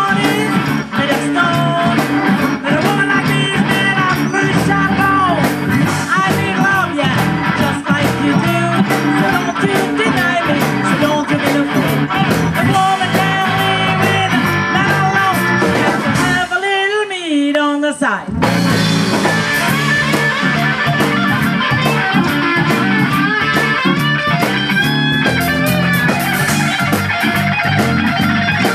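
Live blues band playing electric guitars, bass guitar and drum kit, with a woman singing. About two-thirds of the way through, the band stops for a couple of seconds while a single wavering, bending line carries on alone, then the full band comes back in.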